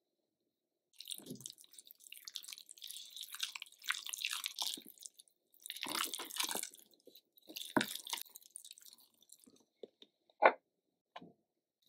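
Wooden spatula stirring and mashing a thick, wet paste of minced chicken breast and tofu in a bowl, with irregular squelching and scraping. One sharp knock a little after ten seconds is the loudest sound.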